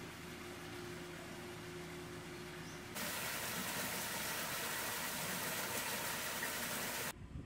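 Water pouring into a rock-lined garden pond, a steady rushing splash that comes in suddenly about three seconds in. Before it, a steady low hum over the faint run of a shallow garden stream.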